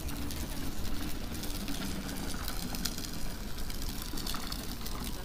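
A vehicle engine running, with a steady low rumble and a faint hum.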